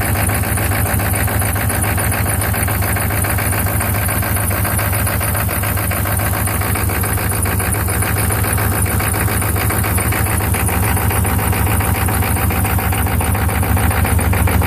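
1995 Chevy 6.5 L turbo-diesel V8 idling roughly, with a fast, even diesel clatter. The rough idle is a fault whose cause the owner does not know.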